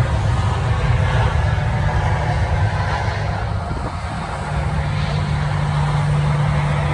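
Loud steady rumble of jet aircraft engines, joined by a steady low hum about halfway through.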